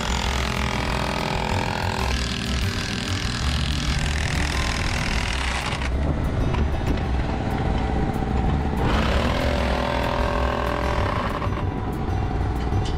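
A steady engine drone, with a cordless drill motor whirring in two long spells, one at the start and one from about nine seconds in, as it drives the bolts of a steel crossarm clamp into place.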